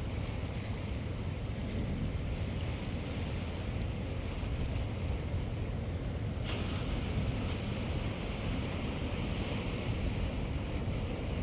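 Sea surf washing steadily with wind blowing on the microphone, a constant low rumble. The hiss of the water grows stronger about six and a half seconds in.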